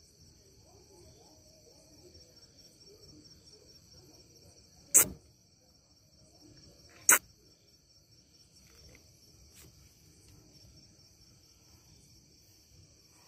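Crickets chirring steadily and faintly, broken twice, about five and seven seconds in, by a short, sharp, loud burst.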